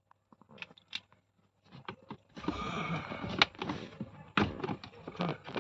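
Plastic cabin-filter cover and housing being handled: a few light clicks, then from about two seconds in a run of scraping and rubbing with several sharp knocks.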